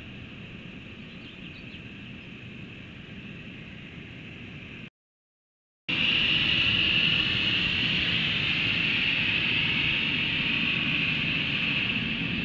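Steady outdoor background noise picked up by a rooftop camera microphone, a hiss with a low rumble under it. It cuts out to silence for about a second about five seconds in, then comes back louder.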